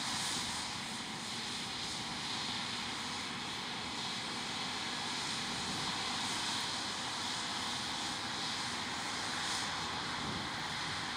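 Combine harvester running steadily at work, its engine and threshing machinery making an even, unbroken hiss.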